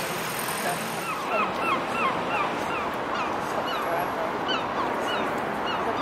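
Seagulls calling: a quick series of short, repeated calls, about three a second, thinning out to scattered calls toward the end, over a steady background hiss.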